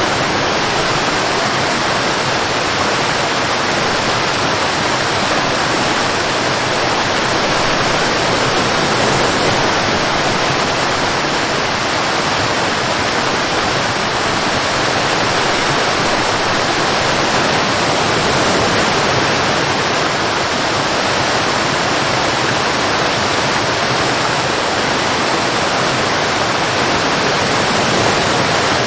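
Waterfall: water falling steadily and heavily, an even rushing roar with no change in level.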